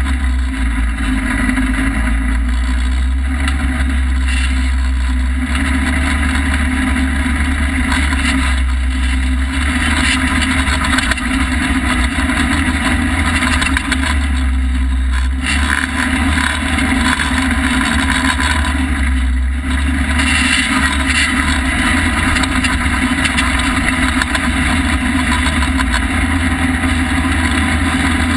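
Polaris RZR side-by-side running steadily while driving, its engine drone mixed with a constant loud rushing noise that does not let up.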